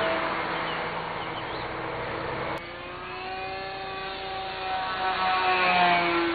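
Electric motor and pusher propeller of a Bixler RC foam glider in flight, a steady whine with several overtones. It eases off and drops in level about two and a half seconds in, then swells louder near the end as the plane comes close.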